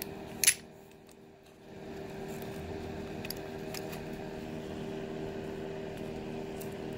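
Hand tools handled on a rubber work mat: one sharp metal click about half a second in and a couple of faint ticks later, over a steady low hum.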